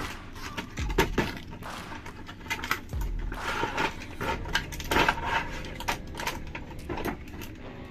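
Hard plastic toys and packaging being handled, with a run of sharp clicks, knocks and clatters, busiest about halfway through.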